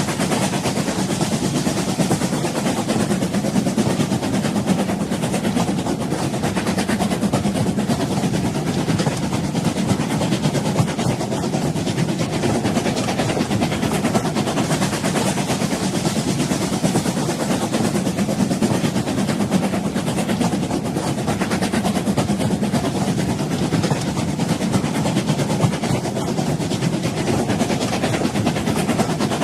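Old train running with a steady, even rumble that holds without a break.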